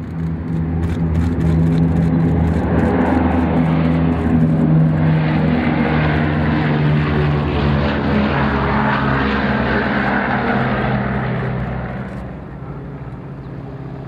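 Four Wright R-3350 radial engines of a B-29A Superfortress at takeoff power during the takeoff roll and liftoff: a loud, steady, deep engine drone with propeller noise. It swells early on and fades about twelve seconds in as the bomber climbs away.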